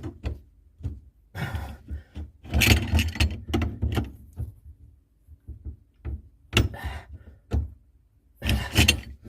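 Spanners knocking, scraping and clanking against a copper pipe compression fitting as its nut is tightened, in irregular short bursts with pauses between.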